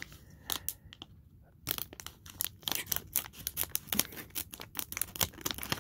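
Scissors cutting open a plastic LEGO minifigure blind bag. The blades and the crinkling plastic make an irregular run of short, sharp snips and crackles, starting about half a second in and coming faster from a little under two seconds in.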